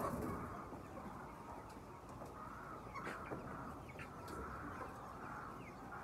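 A large flock of chickens clucking and chattering together as one steady mass of calls, with a few single calls standing out now and then.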